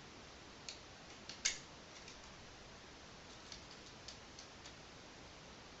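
Faint, irregular small clicks and ticks of a screwdriver turning small screws into the metal heatsink plate at the bottom of an airsoft rifle's pistol grip, with one sharper click about a second and a half in.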